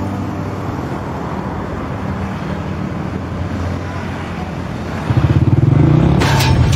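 A steady low rumble, then a small motorbike engine revs up loudly about five seconds in, with a rapid low pulsing, as the bike pulls away.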